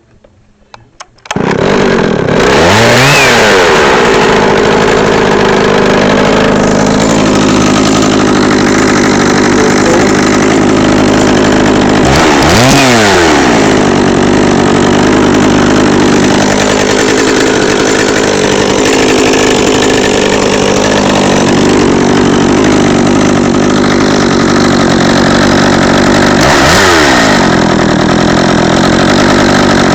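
Echo CST-610EVL twin-cylinder chainsaw engine catching suddenly about a second in, then idling steadily. It is revved up and let back down to idle three times, shortly after starting, around the middle and near the end.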